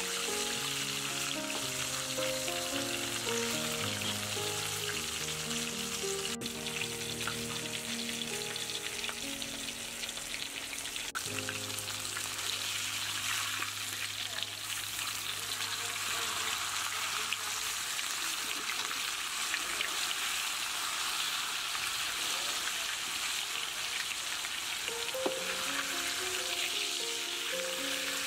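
Whole fish frying in hot oil in a wok: a steady, dense sizzling with a few sharp clicks. A soft background melody plays over it for the first twelve seconds or so and comes back near the end.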